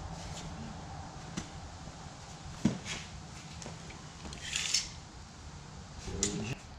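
Hand tools and parts being handled on a workbench: scattered light clicks, one sharp knock a little under three seconds in, and a short scraping rustle about halfway through.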